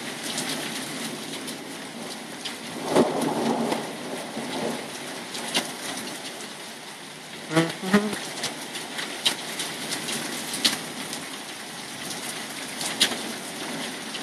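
Steady heavy rain hissing down, with sharp drips tapping close by. About three seconds in comes a brief clap and rumble of thunder. Near the middle there are two short low tonal sounds.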